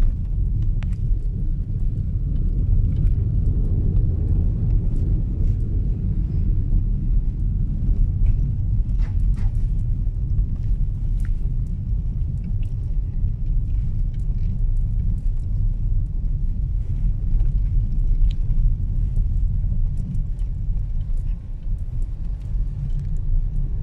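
Steady low rumble of a car's engine and tyres heard from inside the cabin while driving, with a few faint ticks and knocks scattered through it.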